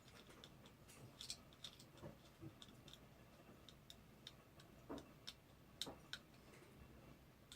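Faint, irregular small clicks and ticks of plastic camera parts and a tiny screw being handled and worked loose as the camera is taken apart.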